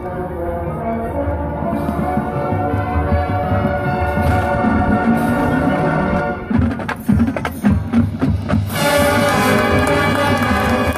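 High school marching band playing its competition field show: held brass chords over bass and percussion, broken by a run of separate sharp drum hits about six to eight seconds in, before the full band comes back in a bright, sustained chord.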